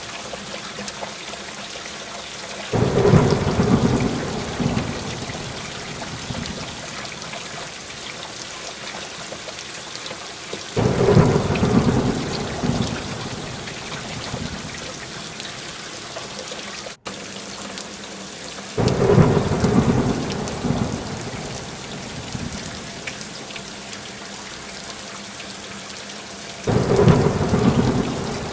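Steady rain, with four rumbles of thunder about eight seconds apart, each lasting about two seconds. The rain cuts out for a split second about two-thirds of the way through.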